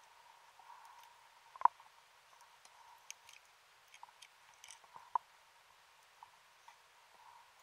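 Underwater, heard through a camera housing: scattered sharp clicks and knocks of a diver's equipment bumping against the concreted wreck. One loud knock comes about one and a half seconds in and another about five seconds in, over a faint steady hum.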